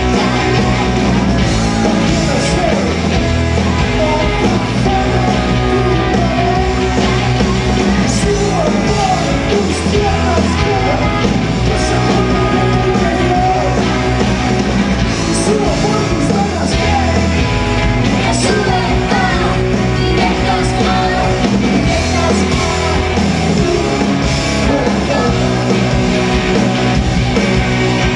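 Indie rock band playing live: two electric guitars, bass guitar and drums, with vocals over the top.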